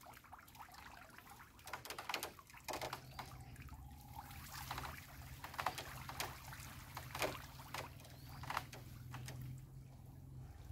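Water splashing and trickling in irregular bursts as a bamboo-framed lift net is handled by hand in a shallow muddy canal, with a faint steady low hum underneath.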